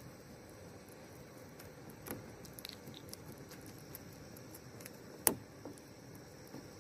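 Faint crackling, scratching and small clicks of fingers working a tree-sap and twig patch into the leaking seam along the ridge line of a canoe floor, with one sharp click just after five seconds in.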